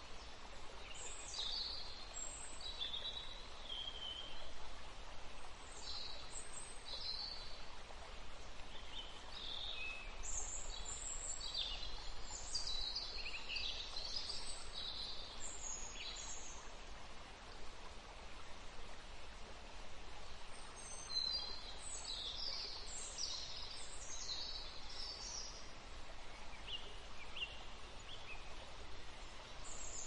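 Songbirds chirping and calling in short, high notes, in clusters with a lull a little after the middle, over a soft steady background hiss.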